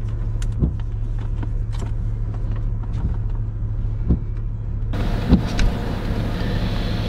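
Pickup truck engine idling, heard from inside the cab as a steady low hum, with scattered small clicks and knocks of handling. About five seconds in, a steady hiss abruptly joins it.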